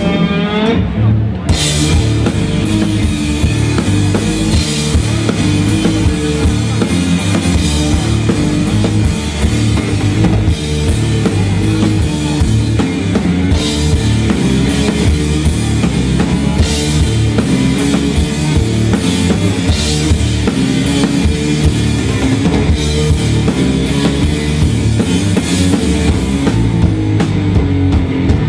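Live rock from a guitar-and-drums duo: a heavy electric guitar riff over a driving drum kit, with cymbal crashes every few seconds.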